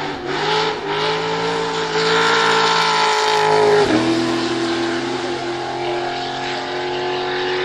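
Ultra4 off-road buggy's engine pulling hard at full throttle, revs climbing, then a quick upshift about four seconds in drops the pitch and it pulls on in the next gear.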